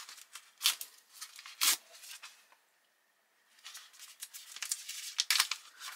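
Plastic packaging pouch of a SOL Fire Kit torn open by hand: sharp ripping strokes, the two loudest about one and two seconds in. After a short pause comes the crinkle and rustle of the torn wrapper being worked open.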